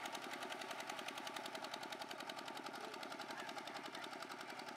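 Small single-cylinder diesel engine of a two-wheel walking tractor running as it drags a levelling harrow through flooded paddy mud: a rapid, even chugging.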